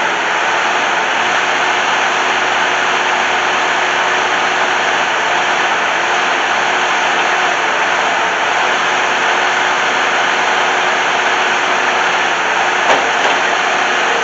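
Bobcat 873 skid steer's engine running steadily at high revs, an even loud noise with a faint steady whine underneath. There is a single short knock about a second before the end.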